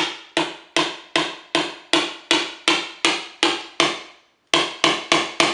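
Hammer striking the handle of a screwdriver, driving it into the side of a pumpkin to make a hole for a perch stick. A steady run of about eleven strikes, roughly two and a half a second, then a short pause and four quicker strikes.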